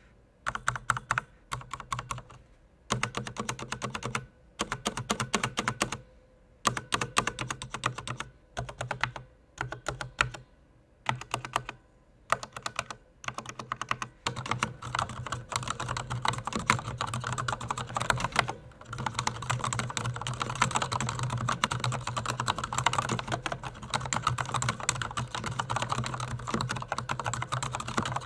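Typing on a Corsair K60 RGB PRO SE mechanical keyboard with Cherry Viola linear switches and PBT keycaps: short bursts of keystrokes with pauses for about the first half, then steady, fast continuous typing. The board has some hollow case resonance.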